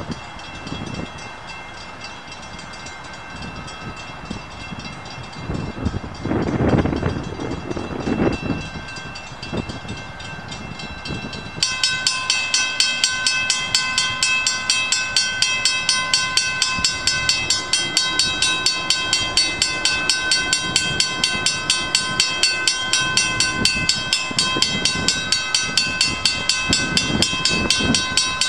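Railroad crossing warning bell starts ringing about a third of the way in, a fast, evenly repeated ding that carries on steadily, signalling that a train is approaching. Before it, a quiet street background with a brief low rumble.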